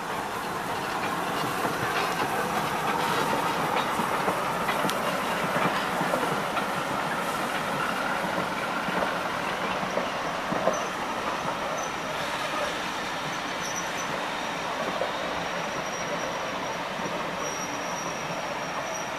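Slow-moving steam-hauled train of bogie passenger coaches rolling past behind Taff Vale Railway O2 class 0-6-2T tank engine No.85: a steady rumble of wheels on track with scattered clicks over rail joints. A thin, high wheel squeal comes in about halfway through as the train runs into the station.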